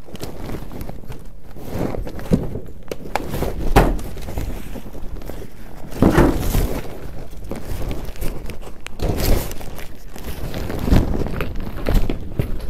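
Clothing rustling and scraping against a body-worn camera's microphone as the wearer moves, with irregular thumps and knocks.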